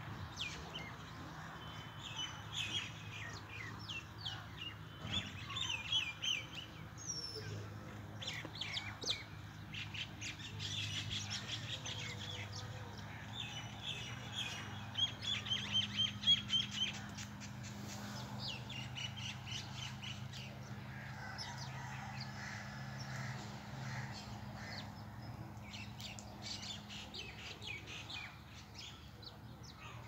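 A flock of small birds chirping continuously, many short overlapping chirps, with a louder, denser flurry about halfway through. A low steady hum runs underneath.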